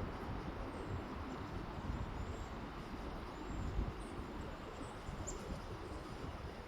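Small birds chirping faintly, several short high notes and a few brief arched calls, over a steady low rumble.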